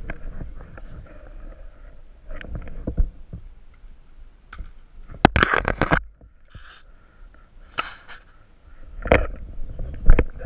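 Rustling, scuffing and light knocks from a player's gear and riot shield as he moves through tall weeds, with a louder burst of rustling and clicks about halfway through and two shorter bursts near the end.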